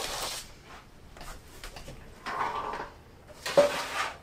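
A metal baking sheet is slid off the counter, the RV oven door is opened, and the sheet goes in onto the oven rack. There is a scraping rustle at the start and a sharp metal clank about three and a half seconds in.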